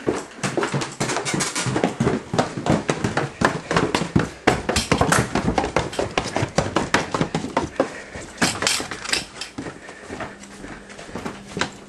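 Quick, irregular knocks and clatter, several a second: hurried footsteps on the floors of a house, mixed with handling noise from a handheld camcorder that is moving with the walker.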